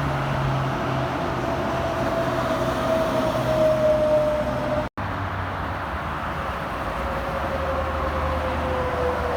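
Highway traffic: a passing truck with a whine that slowly drops in pitch over a steady low hum, loudest about four seconds in. The sound cuts out for an instant just before five seconds, then a second slowly falling whine follows over the traffic noise.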